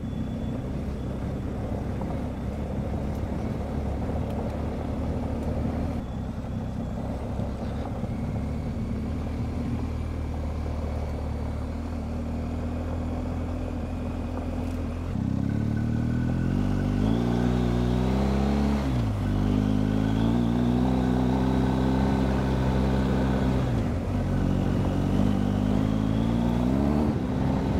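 BMW R1250GS Adventure's boxer-twin engine. It runs steadily at a light cruise for about the first half, then gets louder and accelerates, its pitch climbing in steps with brief drops between the climbs.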